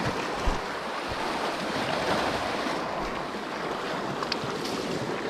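Sea surf washing over shore rocks, a steady rush of breaking water, with a couple of dull knocks about half a second and a second in.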